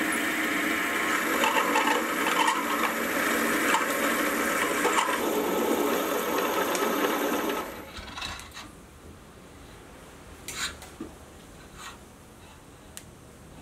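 Milling machine drilling a hole through an aluminium block: steady spindle-motor sound with the bit cutting, which cuts off about eight seconds in. After that, faint scraping and a few light clicks as a hand reamer is turned in the hole with a tap wrench.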